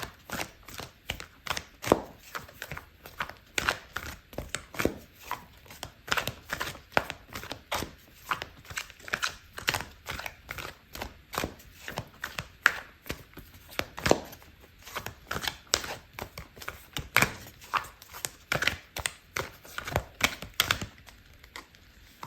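A tarot deck being shuffled by hand: a steady run of soft card slaps and flicks, several a second, easing off near the end.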